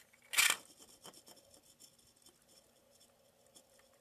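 A 3D-printed plastic spinning top with articulated arms is twisted and released onto a tile floor, with a short, sharp scrape about half a second in. It then spins with a faint, scratchy rubbing and ticking of its point on the tile.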